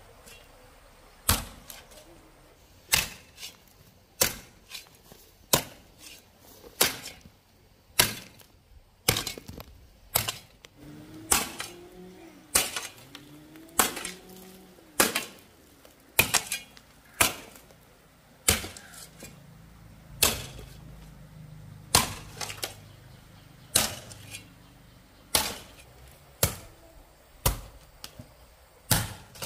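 Steady series of sharp chopping strikes, about one every second or so, now and then two in quick succession.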